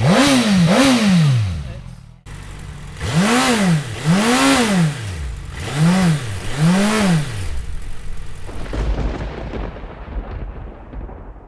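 Suzuki inline-four motorcycle engine revved in quick pairs of throttle blips, each rising and falling in pitch, about six in all. Later the revving stops and gives way to a low, muffled rumble.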